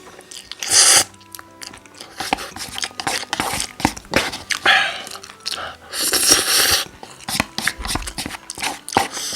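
Close-miked mukbang eating of cup noodles: several loud slurps of about a second each, with chewing and small wet mouth clicks between them.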